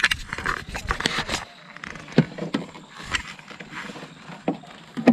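Handling noise in a wooden canoe: rumbling and rubbing for about the first second and a half, then scattered sharp clicks and knocks as fishing gear and a gripping tool are picked up and moved about.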